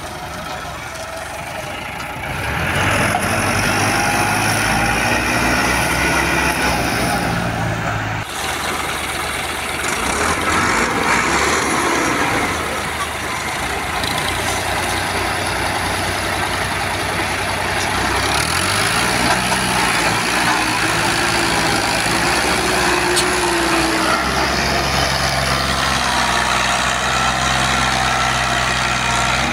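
Diesel farm tractor engines, a Massey Ferguson 385 and an Al-Ghazi 65 hp, labouring under heavy load as they pull trolleys stacked with sugarcane. The engine note rises and falls several times, then holds loud and steady near the end.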